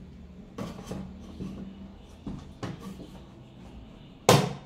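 A few light knocks and clicks from handling parts and tools, then one loud, sharp knock near the end.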